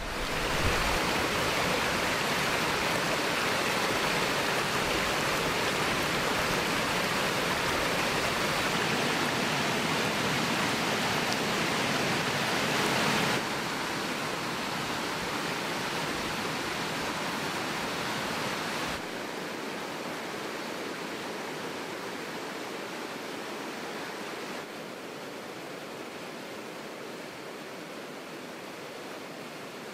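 Waterfall rushing: a steady, dense rush of whitewater cascading over rock ledges. It comes in several cuts that each step down in loudness, about a third of the way in, a little past halfway, and again near the end.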